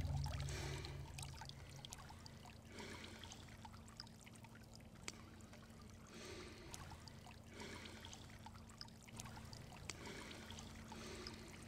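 Faint water lapping and trickling in soft, uneven swells. The last hits of music die away at the start.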